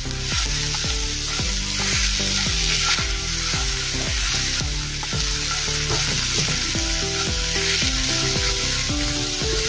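Spiced onion-tomato masala sizzling steadily in hot oil in a pan while it is stirred with a spoon, with light scrapes and taps of the spoon now and then.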